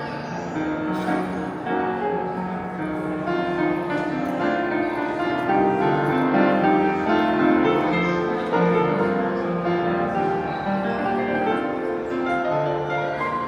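Gentle piano-led music playing steadily, with sustained notes changing in pitch.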